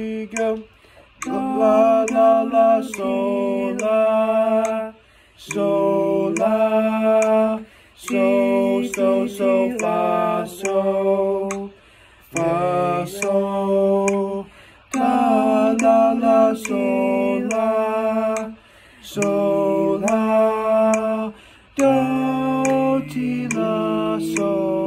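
A small group of young men singing together in harmony, sight-reading from sheet music, in held phrases separated by short breaths.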